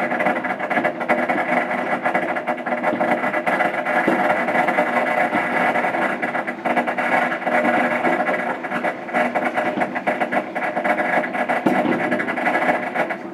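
Fireworks and firecrackers going off in a dense, unbroken crackle of many rapid pops.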